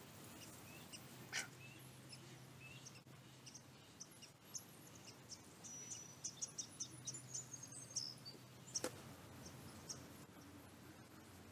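Faint, scattered bird chirps and peeps, with a quick run of high pips about six seconds in. Two sharp clicks, about a second in and about nine seconds in, are the loudest sounds, over a faint low hum that comes and goes.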